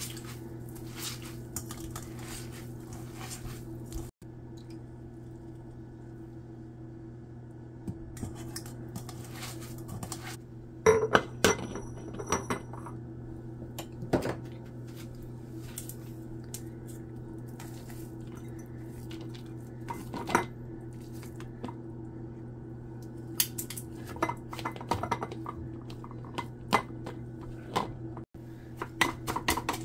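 Grated daikon and carrot squeezed by hand in a mesh strainer at first. Then a plastic funnel knocks and clinks on a glass jar while a spatula scrapes the shreds through it, with scattered clicks over a steady low hum.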